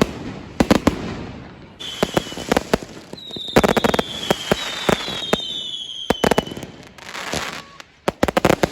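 Fireworks going off: clusters of sharp bangs and crackles. In the middle, several whistling fireworks give overlapping high whistles that fall in pitch, and a fast string of bangs comes near the end.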